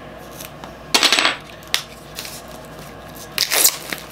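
Plastic wrap being pulled off a cosmetics palette: two short crinkling rustles, about a second in and again near the end, with a small click between them.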